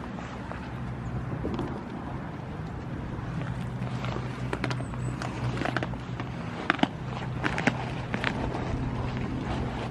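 Wind rumbling on the microphone over a steady low hum, with a few sharp taps and clicks in the second half, the loudest pair about seven seconds in.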